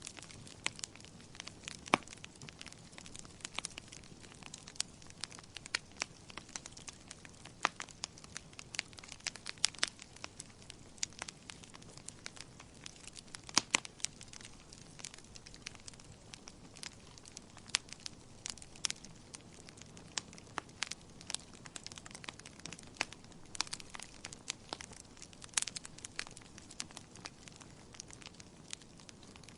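Wood fire crackling in a fireplace: irregular sharp pops and snaps, a few much louder than the rest, over a faint steady hiss.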